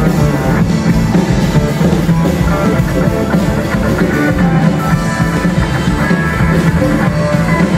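Live rock band playing, with electric guitars, bass guitar and a drum kit over a steady, moving bass line.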